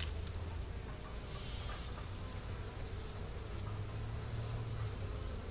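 Honeybees buzzing steadily over an opened hive, a brief click at the start.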